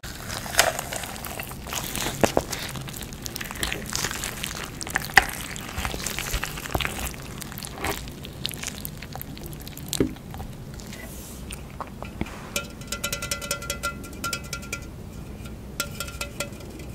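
Close-up of a whole roast rotisserie chicken being pulled apart by gloved hands: irregular crackles and snaps of crisp skin and tearing meat. Faint music with a ticking beat comes in during the last third.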